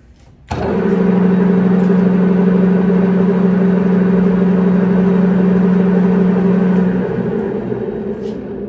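Jet GH-1660R geared-head engine lathe starting up suddenly and running at a spindle speed of 230 RPM with a steady gear hum. About seven seconds in, the hum stops and the spindle winds down, the sound slowly fading.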